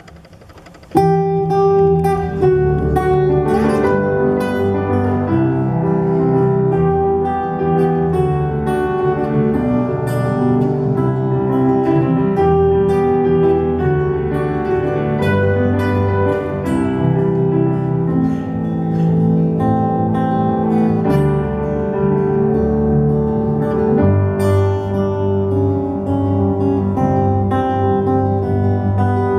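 Acoustic guitar and keyboard playing a song's instrumental intro live, starting abruptly about a second in.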